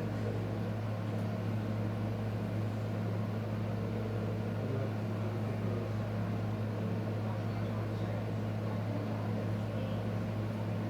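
A steady low machine hum holding one constant low pitch throughout, with no other events.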